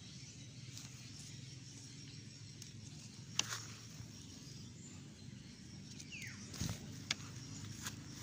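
Hand-picking green chili pods from the plants: faint leaf rustling and a few sharp clicks as pods are handled and snapped off, over a steady low hum of outdoor background.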